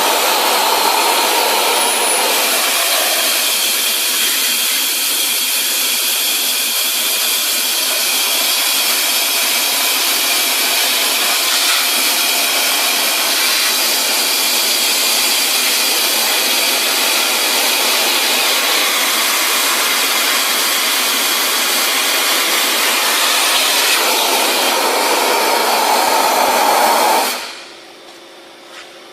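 Compressed-air-driven wet/dry industrial vacuum cleaner running with a loud, steady rushing hiss of air, then shut off suddenly near the end.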